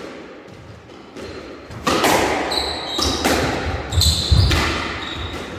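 Squash rally: the ball cracks off rackets and the court walls about every half second to a second, with short high squeaks of shoes on the wooden court floor between shots.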